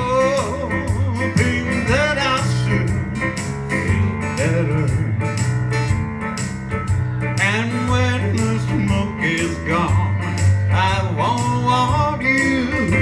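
A man singing a song live, accompanied by acoustic-electric guitar and a Yamaha CP5 stage piano.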